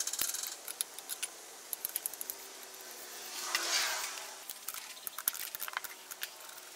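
Light metallic clicks and clinks of hand tools and metal fittings being handled on a turbocharger, with a brief rustling noise about three and a half seconds in.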